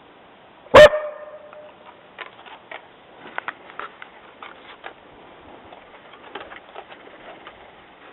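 A dog's single loud bark about a second in, with a short pitched tail, then faint scattered clicks.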